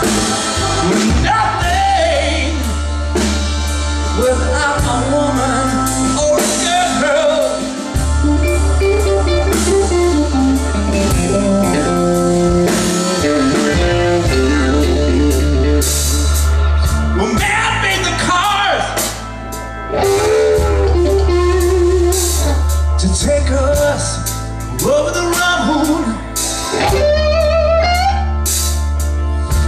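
Live blues band playing a slow song, a man singing over electric guitar, with long held low notes underneath.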